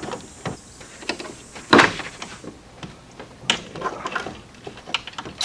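A few sharp clicks and knocks of tools against metal and plastic parts of the car's radiator support, the loudest about two seconds in, with a cluster of lighter clicks near four seconds.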